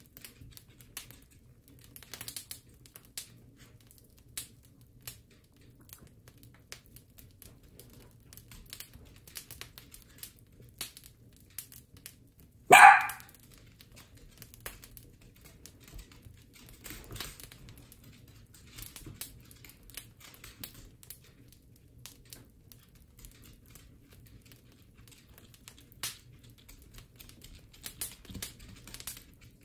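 A dachshund barks once, a single short bark about 13 seconds in, over scattered light clicks and ticks.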